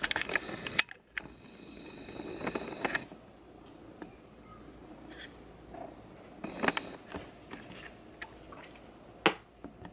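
Scattered light clicks and taps of handling, with one sharper click near the end and a faint high steady tone for about two seconds near the start.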